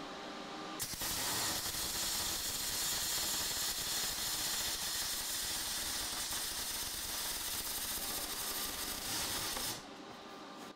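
MIG welding arc crackling and sputtering steadily for about nine seconds as a bead is run on steel. It starts about a second in and cuts off sharply shortly before the end.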